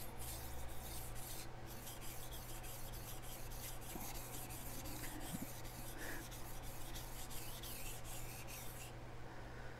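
A steel chef knife blade is stroked back and forth over a Chosera whetstone, making a steady run of gritty rasping strokes that stops about nine seconds in. The edge is being worked up to a full burr.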